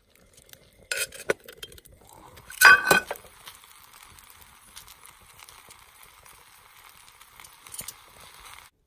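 Cast-iron lid of a small cocotte pot clinking as it is taken hold of, then clanking loudly with a brief metallic ring when it is lifted off and set down, about three seconds in. After that comes a steady sizzle with small crackles from the hot pot of whole garlic bulbs over the campfire, cutting off suddenly near the end.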